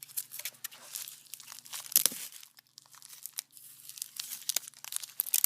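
Wrapping and band on a brick of firecracker packs being cut and torn off, with crackly rustling and tearing. A few sharper crackles stand out, the loudest about two seconds in.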